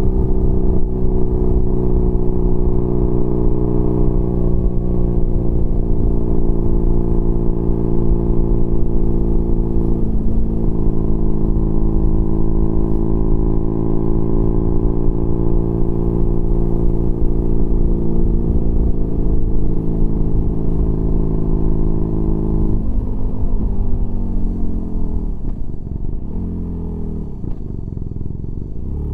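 BMW R nineT Pure's boxer twin running through a Competition Werkes slip-on exhaust with a 1.5-inch dB killer, heard on board at steady cruising revs. There is a brief break in the note about ten seconds in. From about 23 seconds the revs fall and dip in steps as the bike slows.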